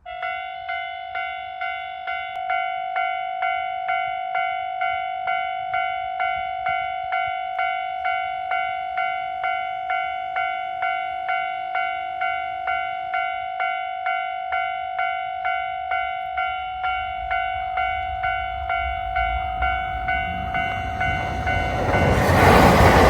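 Japanese level-crossing warning bell ringing its steady "kan-kan" clang, just under two strikes a second. In the last few seconds the rumble of an approaching train builds up and drowns the bell as the train reaches the crossing.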